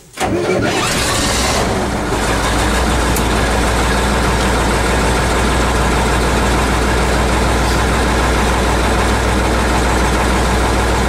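KhTZ T-150K tractor's diesel engine idling steadily, heard from inside the cab; it comes in abruptly right at the start.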